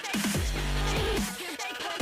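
Electronic background music with heavy bass and repeated falling synth sweeps, in a dubstep style.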